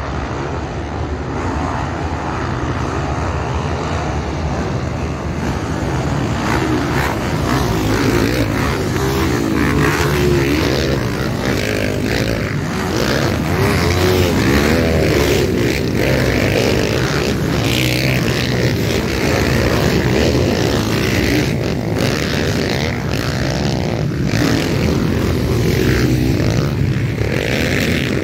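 A pack of motocross bikes racing over the jumps on the first lap, many engines revving at once in an overlapping drone that grows louder as the field arrives a few seconds in.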